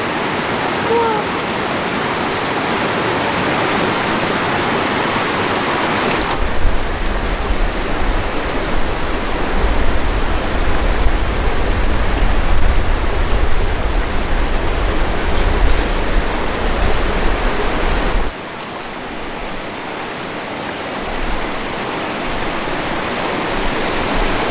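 Mountain stream water rushing steadily. A deeper low rumble joins in about six seconds in and drops away abruptly near eighteen seconds.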